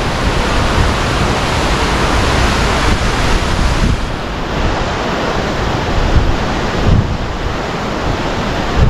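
Wind blowing across the microphone: a steady loud rush, with low buffeting thumps from gusts about seven seconds in and again near the end.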